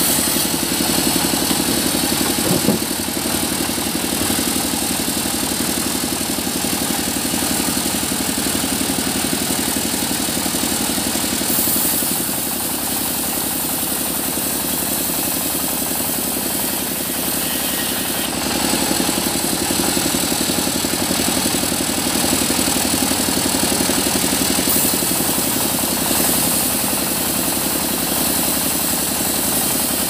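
Sawmill machinery running steadily with an engine-like drone. There is a brief knock about three seconds in, and the sound dips slightly in level for a few seconds in the middle before picking up again.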